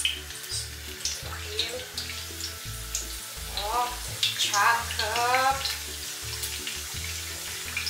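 Battered banana slices frying in hot oil in a wide pan: a steady sizzle with frequent sharp crackles.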